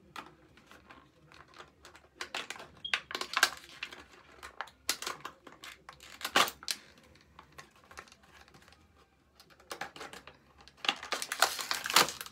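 Metal fork sawing and tearing through a thin, crumpled empty plastic water bottle: crackling, crinkling plastic and scraping clicks, in three spells with short pauses between.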